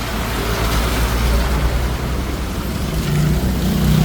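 Road traffic passing close by: a steady low engine rumble with tyre hiss. Near the end, a vehicle's engine hum grows louder.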